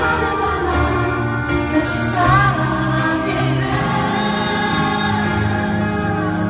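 Slow ballad played live, with sustained bass notes and chords and a wavering voice line over them.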